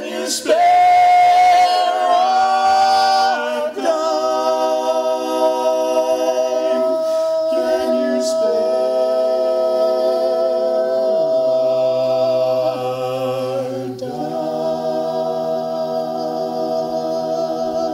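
An a cappella vocal group sings unaccompanied in close harmony, holding long sustained chords. A low bass voice drops in beneath the chord partway through.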